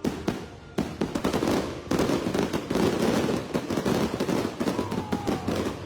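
Fireworks going off: a few sharp bangs, then from about two seconds in a dense barrage of rapid crackling reports. A faint falling whistle comes near the end.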